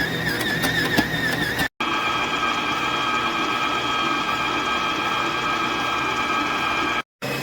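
Electric stand mixer's motor running with a steady whine, in short clips joined by two abrupt cuts: the first clip's whine wavers, the longer middle one holds steady.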